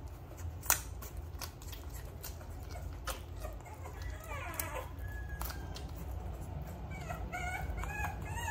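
A three-week-old American bully puppy gives short, high squeaks and whimpers while being held and hand-fed, mostly in the second half. A few sharp clicks come with them, the loudest about a second in, over a low steady hum.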